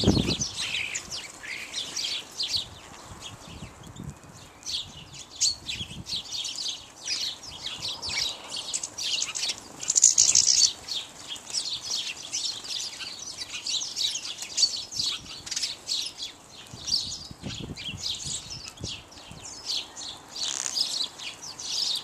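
House sparrows chirping in a steady, busy chatter of short chirps, with wingbeats as birds fly on and off a seed feeder. A louder burst of sound comes about ten seconds in.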